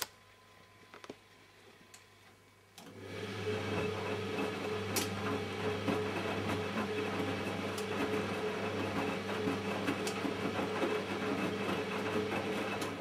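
A click, then after a few seconds the Siemens Siwamat 960 washing machine's drum motor starts and turns the drum steadily with a fixed hum for about ten seconds before stopping, one turning interval of the main wash.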